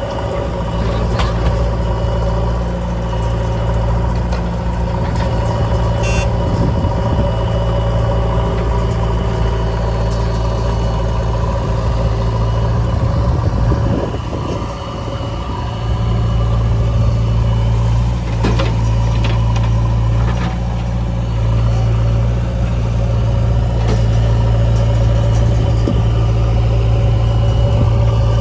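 Diesel engines of a JCB backhoe loader and a Swaraj tractor running steadily, with a few short clanks. The engine note dips briefly about halfway through.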